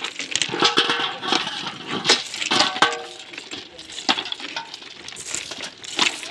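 Railway ballast stones clinking and clattering into steel pans as they are scooped out by hand, in irregular handfuls, some hits leaving the pan ringing briefly.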